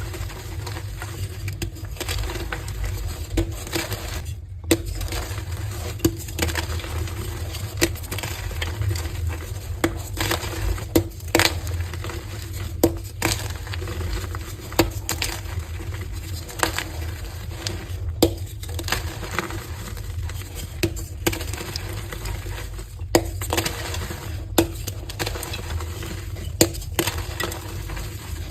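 Heart-shaped blocks of coloured gym chalk being crushed and broken: an irregular string of crisp crunches and snaps, several a second at times, over a steady low hum.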